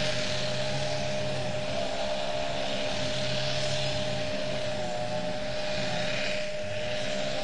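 Steady outdoor background noise: a high hiss that swells and fades every couple of seconds, over a constant mid-pitched hum.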